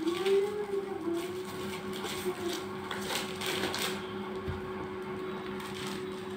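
Plastic wrapping on children's board books rustling and crinkling as they are handled, loudest about three to four seconds in, over a steady low hum.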